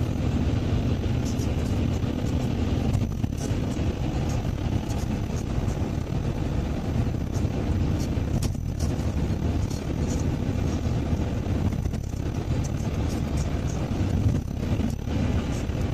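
Steady road noise inside a moving car's cabin: a low, even rumble of engine and tyres at cruising speed.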